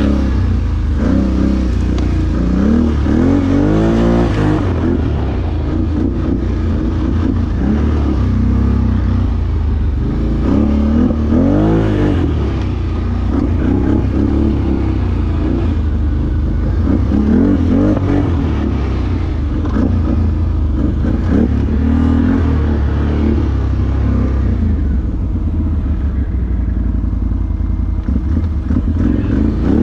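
ATV engine revving up and down again and again as the quad is ridden, over a steady low rumble.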